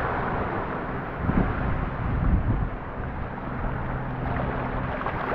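Wind buffeting the microphone over small waves washing onto the shore, with a faint steady low hum underneath.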